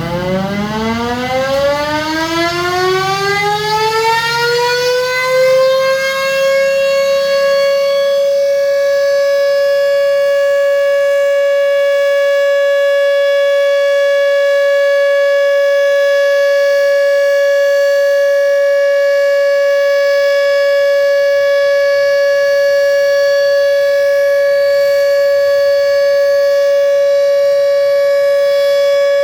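Siren winding up, its pitch rising over the first six seconds or so, then holding one loud steady tone: the signal that the time has come to break the fast in Ramadan.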